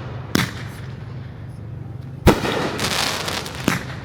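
Aerial fireworks bursting: a sharp bang, then a louder bang with about a second of crackling after it, and another bang near the end.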